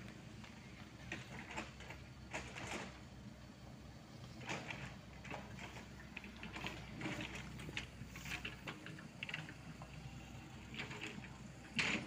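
Isuzu Elf dump truck's diesel engine running low as the truck crawls over a muddy, rutted track, with irregular clanks and rattles from the truck, one sharper knock near the end.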